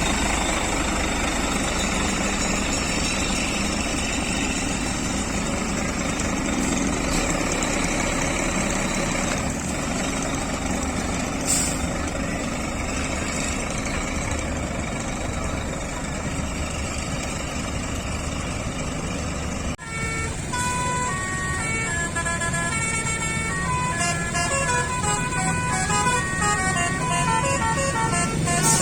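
A truck engine running steadily. About two-thirds of the way in, after a brief break, a multi-tone basuri (telolet) truck horn plays a tune in short notes that step up and down in pitch over the engine.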